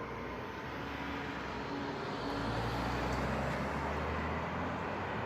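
Road traffic noise with a vehicle's low engine rumble that grows louder about two seconds in and drops away after about four seconds. The tail of a siren winding down fades out at the start.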